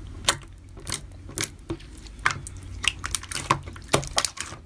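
Slime being squeezed and poked by hand, making irregular sharp clicks and pops, about three or four a second.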